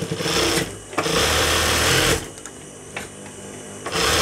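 Sewing machine stitching in stop-start runs: a short run, a longer run of about a second, a pause, then it starts stitching again near the end. It is sewing a second line of stitching along the fabric of a petticoat.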